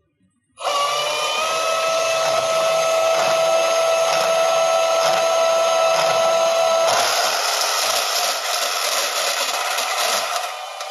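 Cordless Milwaukee Fuel deep cut band saw running and cutting metal stock fed by hand. The motor starts about half a second in with a steady whine. About seven seconds in the sound turns rougher and noisier, and it drops in level near the end.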